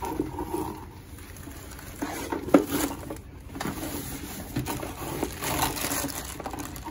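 Plastic packaging wrap crinkling and rustling as items are handled, with a sharp knock about two and a half seconds in.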